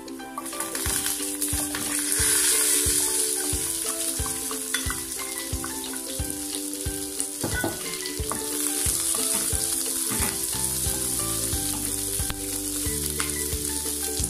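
Diced onions sizzling as they go into hot coconut oil in a nonstick frying pan, then frying and being stirred with a wooden spatula. The sizzle swells loudest a couple of seconds in, as the onions hit the oil.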